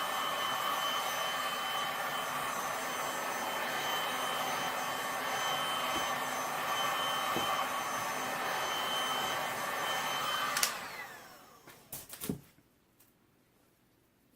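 Heat gun blowing steadily with a high whine, warming freshly poured resin; it is switched off about ten and a half seconds in and its fan whine winds down. A couple of knocks follow, then near quiet.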